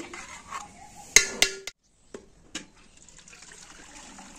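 A metal clank about a second in, then whey from curdled milk pouring through a straining cloth into a steel bucket, a faint steady trickle, as the paneer (chhena) is strained off.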